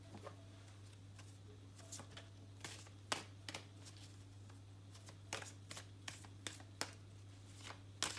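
Tarot cards being handled, with about a dozen short, irregularly spaced snaps and swishes of card stock, over a steady low hum.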